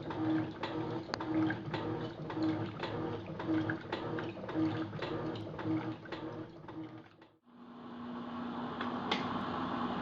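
Electrolux top-loading washing machine agitating during a rinse, its motor and agitator humming in a regular back-and-forth rhythm of a little over one stroke a second, with clicks on each stroke. About seven seconds in the sound cuts out briefly and gives way to a steady hum with a water-like hiss.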